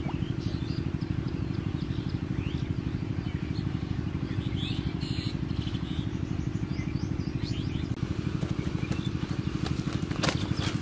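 A small engine chugging steadily with an even, rapid throb, and birds chirping over it.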